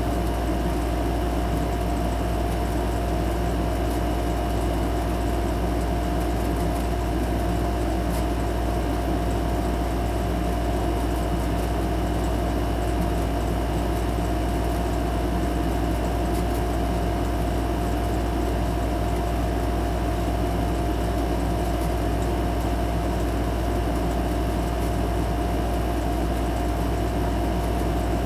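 Steady machine hum with a constant mid-pitched whine over a deep drone, unchanging throughout.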